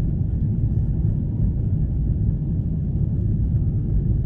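Steady low rumble inside the cabin of a Boeing 777-300ER climbing out just after takeoff: its GE90-115B engines at climb power and the airflow past the fuselage.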